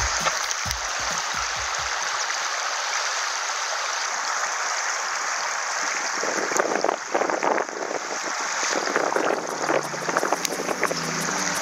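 Steady rush of river water close to the microphone, turning choppier with splashing from about six seconds in. Background music fades out in the first two seconds and comes back near the end.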